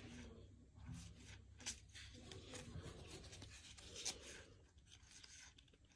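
Faint sliding and rubbing of baseball trading cards thumbed through by hand, one card pushed behind another, with a few soft flicks as cards snap past.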